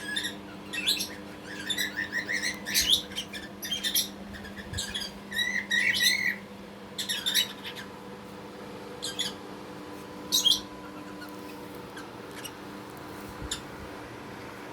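Budgerigar chirping and chattering, busily for the first seven seconds or so, then only a few scattered chirps, over a steady low hum.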